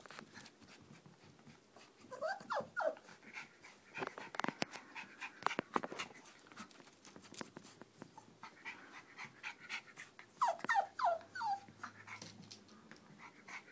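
Nine-week-old cocker spaniel puppies whimpering: two or three short, high, falling cries a couple of seconds in, and a cluster of four or so near the end. Between them come scattered sharp clicks and knocks.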